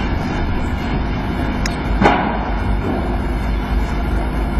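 A single sharp click about two seconds in, the snooker cue tip striking the cue ball, over a steady low hum of the hushed arena.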